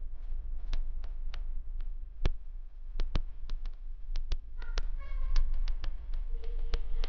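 Irregular sharp taps and clicks, a few to several a second, over a steady low rumble, with a brief pitched sound about five seconds in.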